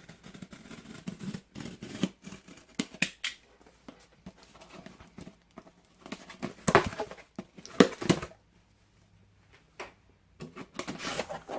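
Cardboard shipping box being opened and unpacked by hand: scraping, tearing and rustling of cardboard and plastic packaging, with two louder knocks about seven and eight seconds in.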